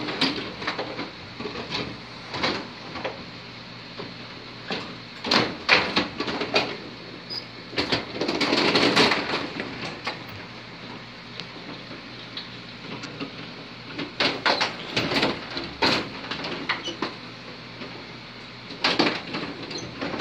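Carrom Super Stick dome hockey table in play: the plastic puck and rod-driven players clacking and the control rods sliding and spinning, in irregular sharp knocks that come in clusters. A longer rattle runs for about a second some eight seconds in.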